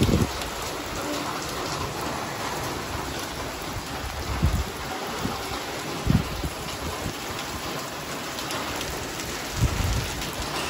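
Steady rain falling on a wet street, an even hiss, with a few brief low rumbles about a second in, around the middle and near the end.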